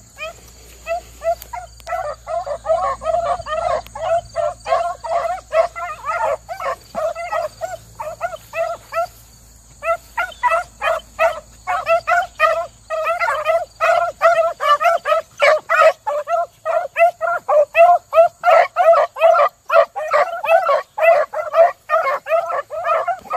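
A pack of beagles baying as they run a rabbit track, several hounds giving tongue together in quick, overlapping calls; the steady cry means the hounds are on the rabbit's scent. The calls pause briefly about nine seconds in, then come back louder.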